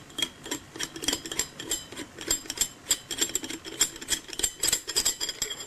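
Steel nuts of a 1-inch double-ferrule compression fitting clicking and clinking as a hand grips and turns them: an irregular run of small, sharp metallic clicks, several a second.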